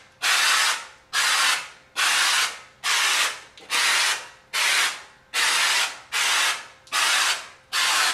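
Aerosol can of spray-on popcorn ceiling texture hissing in a run of about ten short bursts, a little more than one a second, as the can is fanned back and forth; each burst starts sharply and tails off.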